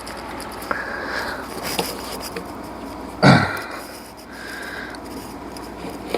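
A man straining as he levers a serpentine belt tensioner with a short bar: breathy noises, and one loud short grunt falling in pitch about three seconds in, with scattered light clicks of metal tools.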